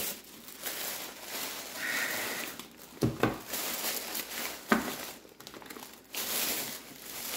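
Plastic bag of wax melts crinkling as it is handled, with two sharper clicks about three and nearly five seconds in.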